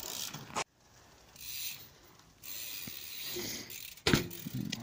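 Bicycle freewheel hub ticking as the bike coasts, with a sharp knock about four seconds in as the wheels hit the ground.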